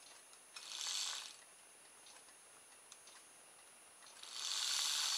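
Small kit-built DC electric motor, its wire coil spinning between fixed magnets, whirring in two short runs as the circuit to the battery is made: once for under a second, then again for about two seconds near the end. It is being run to check which way the propeller shaft turns.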